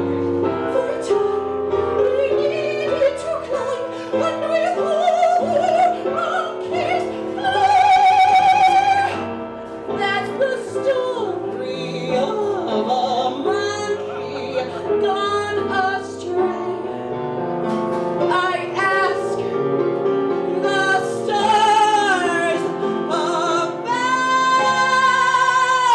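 A solo singer performing a musical-theatre song in an operatic style over instrumental accompaniment. Long, high notes with vibrato are held about eight seconds in and again near the end.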